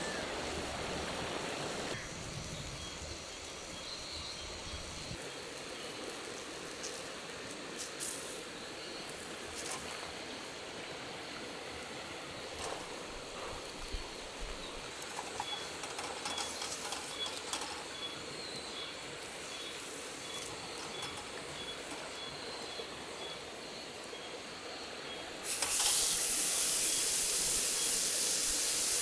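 Food sizzling quietly on a hot Himalayan salt grill plate over a wood stove, with scattered small crackles. About 25 seconds in, a raw steak goes onto the hot salt plate and a much louder, steady sizzle starts.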